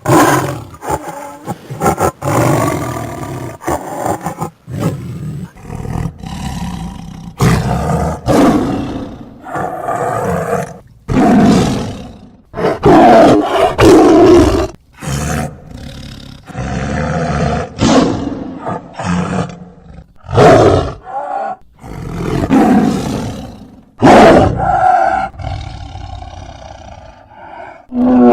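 Tiger vocalisations, roars and growls cut together into a fast string of separate calls, each about a second or two long with short gaps between them.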